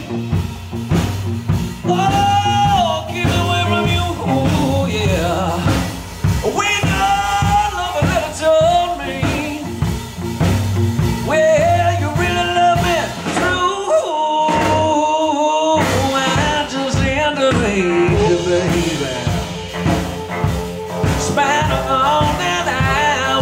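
Live blues band playing an upbeat swing rock-and-roll number, with hollow-body electric guitar, bass and drums under a bending melodic lead and no sung words. Midway the band drops out for about two seconds, leaving a single held note, then comes back in.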